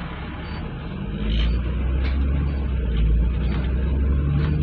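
Double-decker bus running, heard from inside the upper deck: a low engine and body rumble that grows louder about a second in, with a rising engine note.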